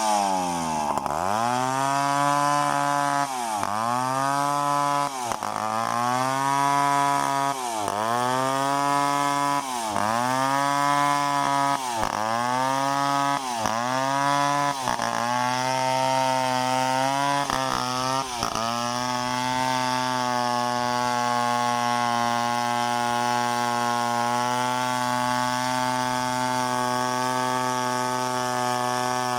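Chainsaw engine running at high speed, its pitch dropping and recovering again and again for about the first half, then holding steady through the rest.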